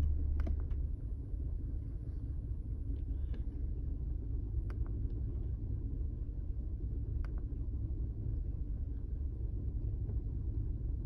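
2005 Chevy Colorado's 3.5-litre inline-five engine idling as a steady low rumble, with a few faint ticks. It is running rough with a misfire, which the scan tool pins on cylinder 3.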